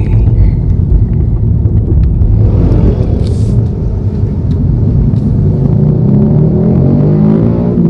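Car engine pulling away under acceleration after the request to go faster: a heavy low rumble, then rising steadily in pitch over the last few seconds as it speeds up.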